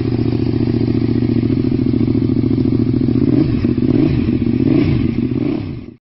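KTM 1190 RC8 V-twin motorcycle engine running at a steady idle, then blipped up and down a few times in the second half. The sound cuts off suddenly near the end.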